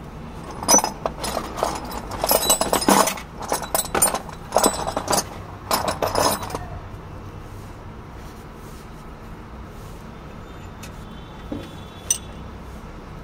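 Metal hand tools clinking and rattling: a socket wrench and extension worked on the cylinder-head bolts of a Hino six-cylinder engine. The clinks come in irregular clusters for the first six seconds or so, then only a few faint clicks follow.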